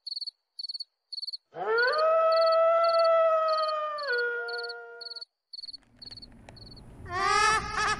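Crickets chirping in quick, evenly spaced pulses, about two a second, with a long eerie howl, a horror sound effect, from about a second and a half in: it rises at the start, holds one pitch, then drops lower before breaking off. A voice starts up near the end.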